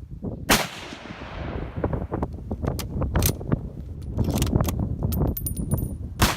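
Two Mosin-Nagant rifle shots, one about half a second in and one near the end, each followed by a long echoing decay. Between them are scattered clicks and knocks over a low rumble.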